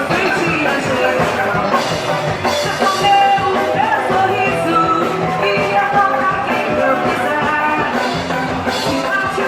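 Frevo band playing live: electric guitars, bass guitar and drum kit in a fast, busy instrumental passage, with a voice possibly joining in.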